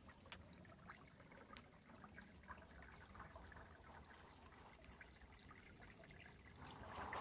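Near silence: the faint trickle of a shallow woodland creek.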